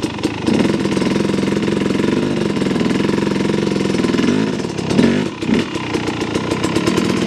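A KTM 250 SX two-stroke dirt bike engine running at low revs in second gear with a Rekluse automatic clutch, the pitch rising and dipping a little, with a short louder clatter about five seconds in.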